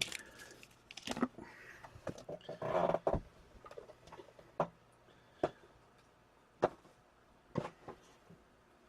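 Light, scattered clicks and taps from handling O-Pee-Chee hockey card packs and cards, with a short faint murmur about three seconds in.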